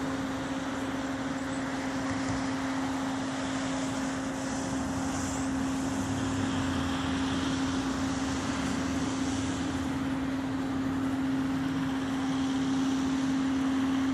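A steady, unbroken hum held on one low pitch, over a faint even rushing background.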